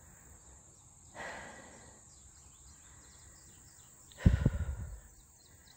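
Summer prairie ambience: a steady high-pitched drone of insects with many short, quick bird chirps over it. About four seconds in, a loud low bump of handling or wind on the phone's microphone.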